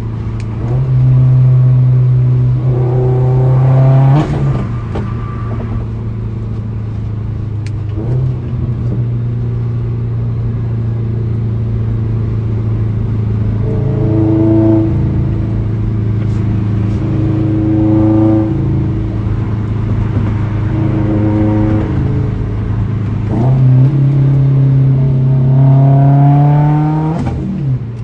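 Subaru boxer engine with a Grimmspeed exhaust header, idling and revved up several times, each rev climbing in pitch and settling back to idle.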